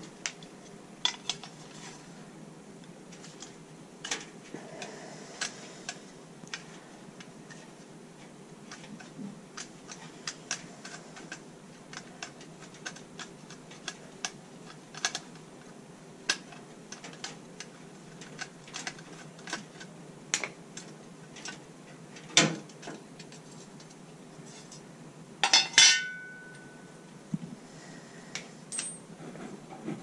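Irregular small metal clicks and taps from handling and cleaning sheet-metal parts of a gas steam boiler's burner assembly. There is a louder metal knock about three-quarters of the way through, then a ringing metallic clang shortly after.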